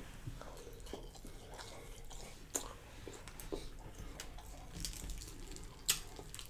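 Faint chewing of a mouthful of French fries and fried catfish, with soft wet mouth sounds and a few short clicks, the sharpest about six seconds in.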